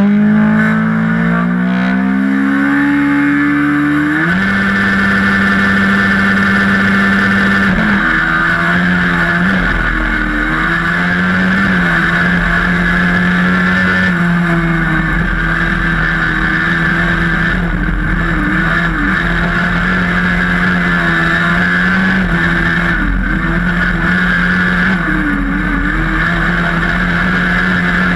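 Onboard engine sound of a single-seat dirt-track racing buggy under hard throttle. The revs climb over the first four seconds, then hold high and steady, with several short dips in pitch through the rest of the run.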